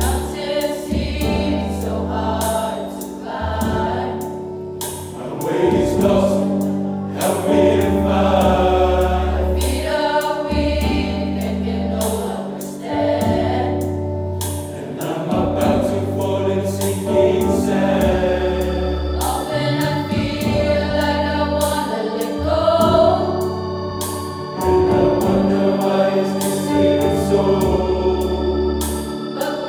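Mixed youth choir singing a gospel song over sustained low accompaniment notes that change every couple of seconds.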